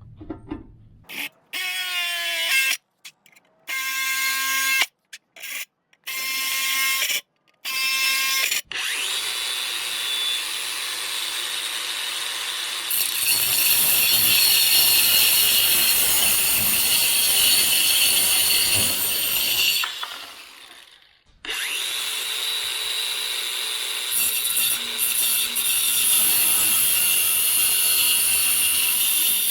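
Electric drill drilling mounting holes through a metal ammo can: a few short bursts as the motor spins up, then a long steady run of drilling that stops briefly about twenty seconds in and starts again.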